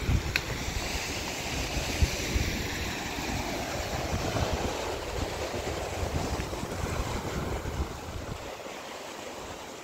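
Sea waves washing on the shore, one wash swelling and fading over the middle seconds, with wind rumbling on the microphone.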